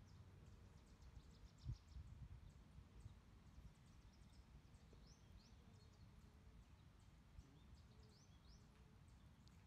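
Near silence: faint woodland ambience, a steady low rumble with many short, high bird chirps scattered through it, and a soft low bump just under two seconds in.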